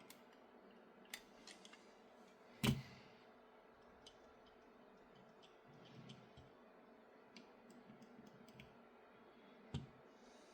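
Faint clicks and taps from a 3D-printed mini RC car chassis being handled and flexed to check its movement, with two louder knocks: one about a quarter of the way in and one near the end.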